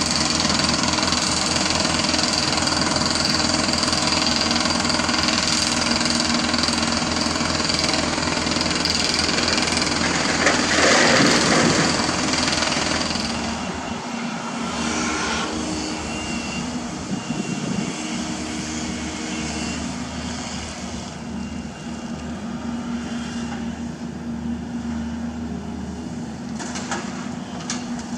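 Diesel engines of crawler excavators, a Hyundai Robex 210LC among them, running steadily as they dig and load rock. There is a louder rushing burst a little before halfway. After that the drone is quieter, and its pitch shifts now and then as the machine works.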